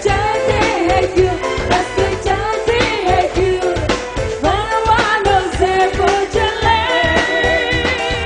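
A band playing a song live: a lead voice sings a bending, sliding melody over a steady drum beat and bass.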